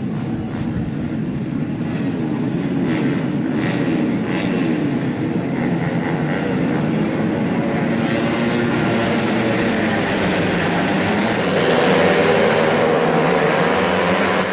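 Several 125cc four-stroke underbone racing motorcycles revving together at the start line, their engine notes overlapping and rising and falling. The sound grows louder toward the end.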